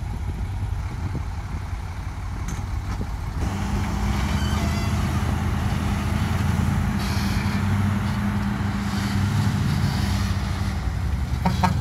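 Heavy dump truck's diesel engine working under load as the truck pulls forward through soft sand. It steps up and grows louder about three and a half seconds in, then holds a steady, even note.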